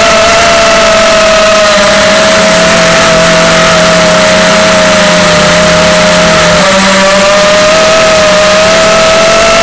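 Loud, steady whine of a 250mm FPV quadcopter's brushless motors and propellers in flight, over rushing air noise. The pitch sags briefly a little past halfway and then climbs back.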